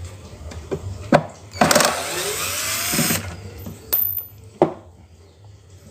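An electric screwdriver runs for about a second and a half with a rising whine as it backs out screws to open an amplifier casing. Sharp knocks and clicks of the tool and the metal housing come before and after it.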